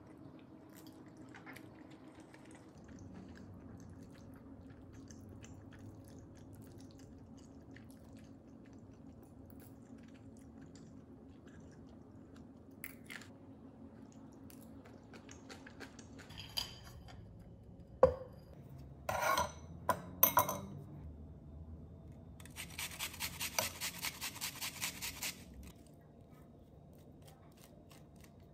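Close-up eating sounds, mostly quiet over a low steady hum. A sharp clink comes about eighteen seconds in, then a few short bursts, then about three seconds of rapid, rhythmic crunchy chewing.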